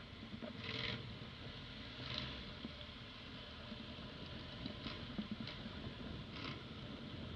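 Motorcycle ridden slowly, a steady low rumble under a noisy hiss, with a few short scratchy rustles scattered through.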